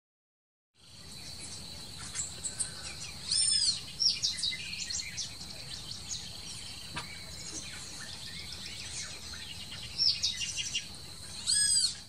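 Wild birds calling and chirping over a steady high-pitched insect drone, starting about a second in. Two loud arching calls stand out, one about three seconds in and one near the end.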